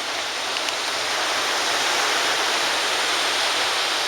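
Ocean surf washing onto the beach, a steady rushing hiss that grows a little louder about a second in.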